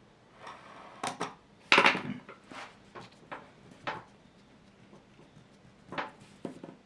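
Drawing instruments being handled on a drawing board: a series of sharp knocks and clatters, loudest a little under two seconds in, with a couple more knocks near the end.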